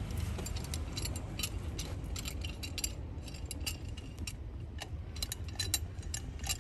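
Light metallic clicks and clinks from a tool working a rear brake caliper, winding the caliper piston back in to test whether the caliper is still good. The clicks come irregularly, several a second, thinning out about halfway through.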